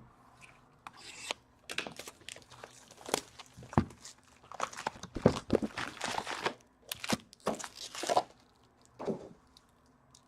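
Foil wrappers of hockey card packs being torn open and crinkled, in an uneven string of short crackling rustles.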